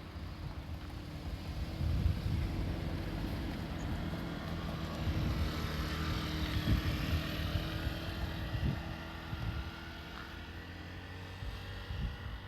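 Diesel railcar's engine drone, building to its loudest about halfway through and then fading, with wind rumbling on the microphone.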